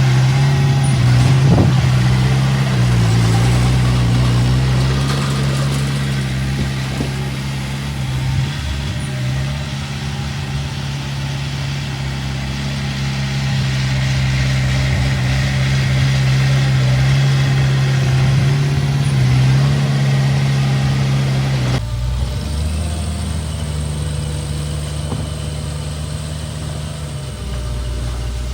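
Diesel engine of earthmoving machinery running steadily, its pitch shifting slightly with load. Near the end the sound changes abruptly to a quieter, lower engine note.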